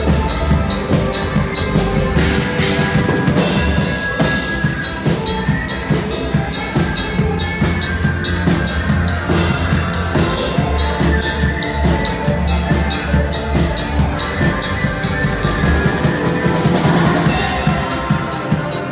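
Live band playing dance music: a drum kit keeps a steady beat under keyboards, including a Yamaha MX synthesizer, with guitars and a strong bass line.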